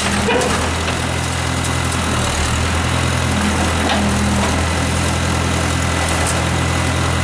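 Case 580 backhoe's engine running steadily while the bucket is worked, a low even drone with a few faint knocks over it.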